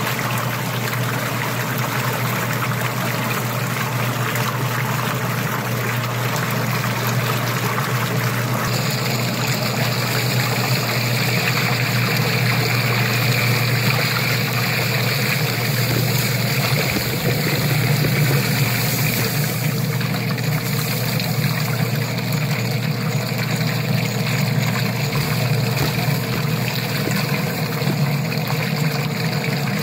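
Submersible sump pump running in a drum of water, churning and splashing as it circulates the water through PVC pipe back into the drum, with a steady electric hum underneath; the water is being mixed into sugar syrup for feeding bees.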